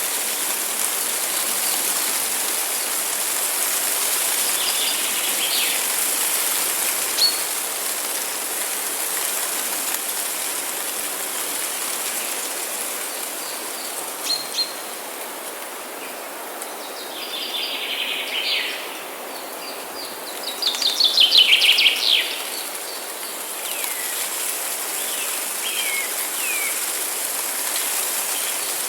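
Wild songbirds chirping over a steady rushing background. Short scattered calls give way to two quick trills in the second half, the second of them the loudest sound.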